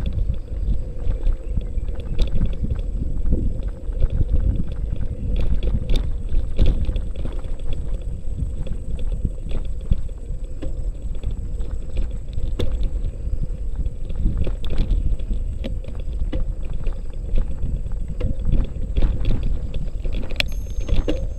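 Wind rushing over the microphone and an Element Pikes folding bike rattling and jolting over a rough dirt track, with frequent small knocks throughout.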